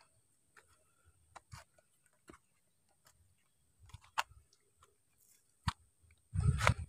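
Footsteps on a dry, rocky dirt path through grass: irregular scuffs and crunches of soil and grit underfoot. A louder scuffing thump comes about six and a half seconds in.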